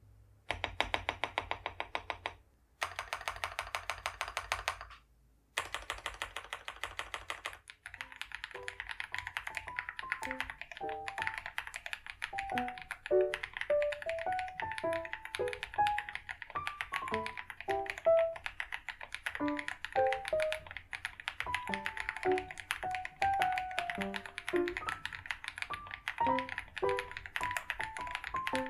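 Fast typing on an Epomaker RT100 mechanical keyboard: a dense run of key clicks with two brief pauses. From about eight seconds in, background music with short plucked-sounding notes plays over the continuing, quieter typing.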